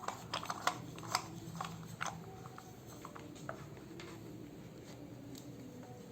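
Light clicks and knocks of the drill and its plastic side handle being handled, several in the first two seconds, then only faint rustling.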